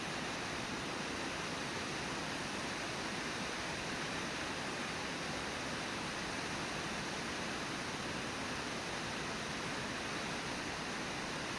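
River water rushing steadily, an even wash of noise with no changes.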